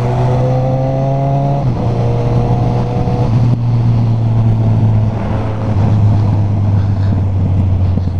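Motorcycle engine pulling under throttle, its pitch climbing, dropping sharply at an upshift a couple of seconds in, then climbing again before settling to a steady cruise, with wind rushing over the rider's helmet.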